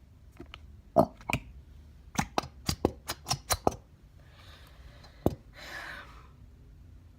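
Handling of a plastic glue bottle while emptying it: a quick run of sharp taps and clicks, then two short soft rustling hisses with a knock between them.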